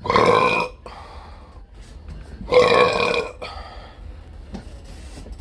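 Two loud, drawn-out burps, each just under a second long, the second starting about two and a half seconds in.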